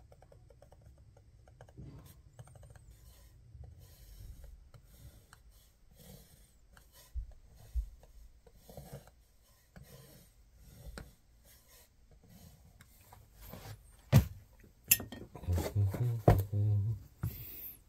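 Faint scratching of a paint marker writing on a paper label on a wooden cigar box. Near the end come two sharp knocks and some scraping as wooden cigar boxes are handled and set down on a cutting mat.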